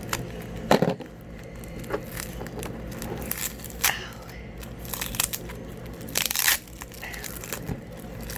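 Packing material being torn and crumpled by hand while a parcel is unwrapped: scattered crinkles and crackles, with a louder rip about six seconds in.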